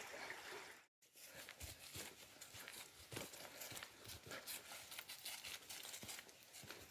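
Faint, irregular crunching footsteps on a trail, with a brief total dropout about a second in.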